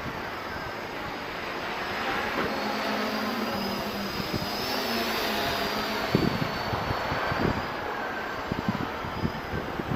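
Quadcopter's electric motors and propellers whining overhead, the pitch wavering and rising then falling as it passes. From about six seconds in, wind gusts thump on the microphone.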